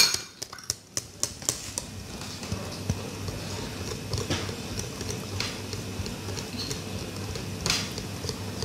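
Wire whisk beating pancake batter in a glass bowl: a quick run of light clicks as the wires tap the glass in the first second or so, then a soft steady stirring with an occasional tap.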